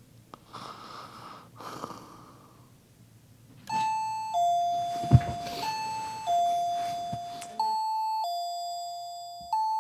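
Caregiver alarm receiver set to chime, sounding a two-tone ding-dong (high note, then low) that repeats about every two seconds, starting a little over a third of the way in. It is the signal that its motion sensor has detected someone moving past.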